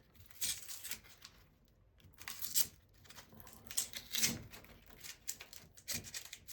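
Blue tape being peeled off wires by hand: several short tearing, crinkling rasps.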